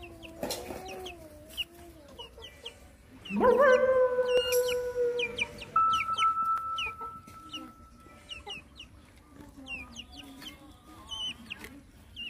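Chickens clucking, with short high chirps throughout. About three seconds in comes one loud call that rises and then holds for about two seconds. A falling whine fades out near the start.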